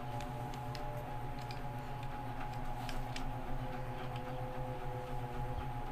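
Scattered light plastic clicks and taps as a flexible gorilla-style tripod and its phone-holder clip are handled, over a steady low hum.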